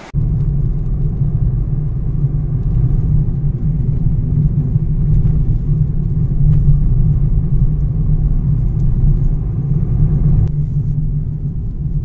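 Steady low rumble of a car driving on a road, tyre and engine noise heard inside the cabin.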